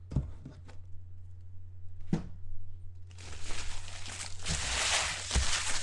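Empty trading-card pack wrappers being gathered up and crumpled by hand: a couple of light knocks on the table, then from about three seconds in a loud, dense crinkling. A steady low hum runs underneath.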